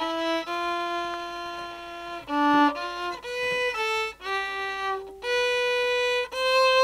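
Background music: a solo violin playing a slow melody of held notes.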